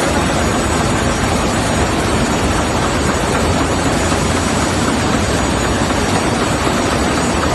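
Medical mattress production machine running at full speed: a loud, steady mechanical din with no clear beat, from motors, rollers and conveyors working together.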